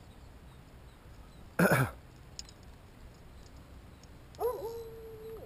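A man's single short cough or throat-clearing about a second and a half in. Near the end, a steady held tone, rising at its start, lasts about a second.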